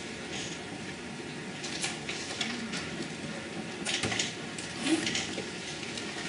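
Dry-erase marker squeaking and scratching on a whiteboard in a run of short strokes, most of them in the middle of the stretch, over a steady room hum.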